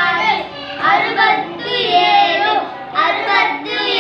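A child's voice reading number names aloud in a high, sing-song chant, one word after another, with other children's voices close by.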